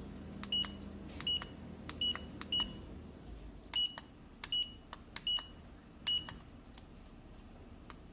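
Handheld CES electrotherapy sleep-aid device beeping as its buttons are pressed: eight short, high beeps at uneven intervals, each just after a click.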